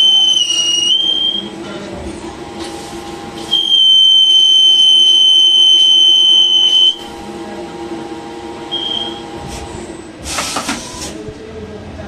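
CNC turning lathe cutting SS316 stainless steel: the tool gives a loud, steady high-pitched squeal during the cut, for about the first second and again from about three and a half to seven seconds in, over the lower hum of the running machine. A short hissing burst comes near the end.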